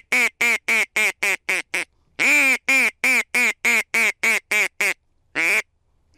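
Mouth-blown mallard duck call giving a hail-style sequence: a run of quacks that speed up and shorten, then after a short pause a longer quack opening a second descending run, and one more single quack near the end.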